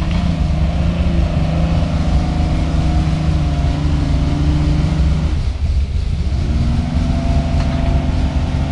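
Off-road pickup truck's engine working as the truck crawls over rough ground, running steadily over a deep rumble. It drops off briefly about five and a half seconds in, then picks up again at a slightly higher pitch.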